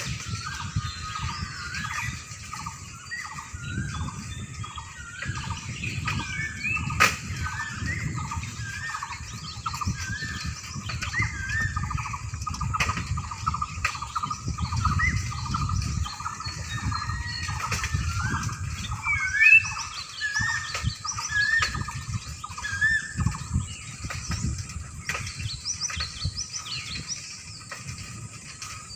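Birds chirping over and over in short, quick rising notes, with an uneven low rumble underneath and a sharp click about seven seconds in.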